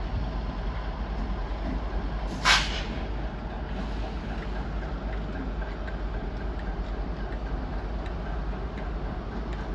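Class 60 diesel locomotive's eight-cylinder Mirrlees engine running steadily as it moves slowly, with a short sharp hiss of released air about two and a half seconds in.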